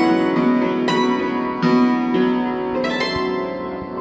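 Hammered dulcimer played with hand-held hammers: quick struck notes with long ringing tones that overlap into a flowing melody.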